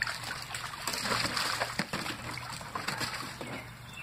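A puppy splashing about in the water of a small plastic wading pool, a run of quick splashes and sloshes that is busiest and loudest between one and two seconds in.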